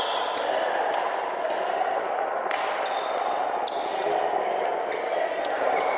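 Echoing sports-hall background: a steady hum with a few sharp knocks, the loudest about two and a half and three and a half seconds in, and short high squeaks.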